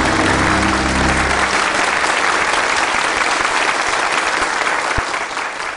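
Studio audience applauding steadily, over the last low notes of a music cue that cuts off about a second and a half in.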